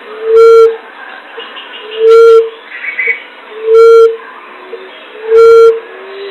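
Common emerald dove (punai tanah) lure call: a single low hoot repeated four times, about every 1.6 seconds, played loud enough to distort, with faint bird chirps in between.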